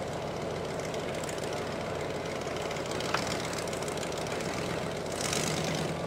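A Jeep-bodied mud-bog truck's engine running steadily at low revs, a continuous low drone. A short burst of hiss rises a little after five seconds in.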